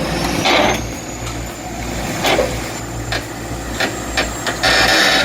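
Heavy machinery engine running with a steady low hum, broken by several sudden hissing bursts and a few sharp knocks.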